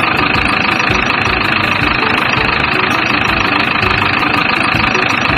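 A vehicle engine running steadily with a fast, even chatter as the toy truck drives forward.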